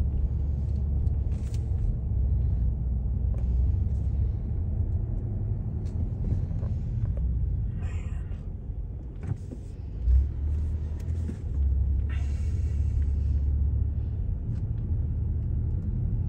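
Steady low rumble of a car driving, heard from inside the cabin, with a single short thump about ten seconds in.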